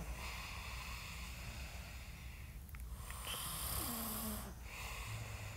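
A person breathing slowly and noisily close to the microphone: a long breath, a short pause, then two shorter breaths, over a low steady hum.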